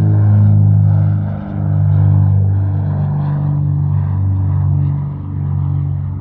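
Aircraft engine droning steadily at a low pitch, the level easing briefly twice.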